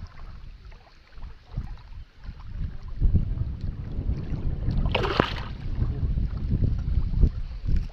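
Wind buffeting the microphone, an uneven low rumble that grows stronger about three seconds in, with a short hissing noise about five seconds in.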